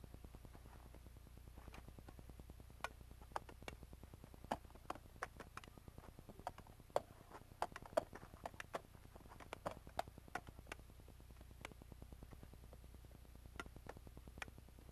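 Sharp, irregular clacks of wooden Zulu fighting sticks striking during sparring, in quick flurries through the middle and sparser near the end, over a faint steady low hum.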